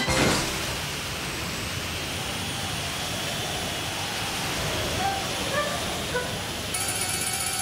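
Steady rushing noise in a cartoon soundtrack, with no tune, beginning with a sudden hit at the start and carrying a few faint short squeaky sounds about two-thirds of the way through.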